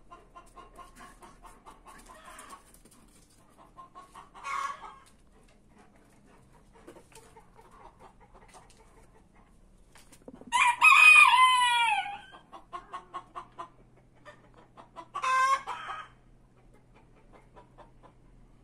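Rooster clucking in quick runs of notes, with a short call about four seconds in, one long loud crow about ten seconds in that drops in pitch at its end, and a shorter crow near fifteen seconds.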